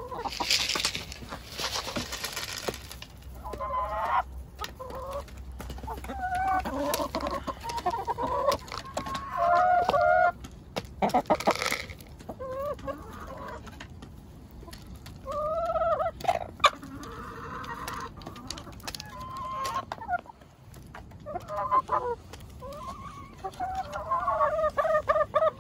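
Backyard hens clucking and making short, rising-and-falling calls over one another. Bursts of rustling noise come near the start and again about eleven seconds in.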